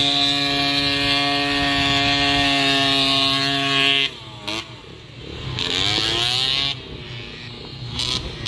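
Small 50cc motorcycle engine held at a steady high pitch for about four seconds, then suddenly dropping away and revving up and down in uneven waves.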